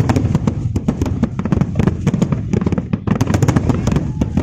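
Fireworks display going off in rapid succession: a dense stream of sharp bangs and crackles, many per second, over a continuous low rumble.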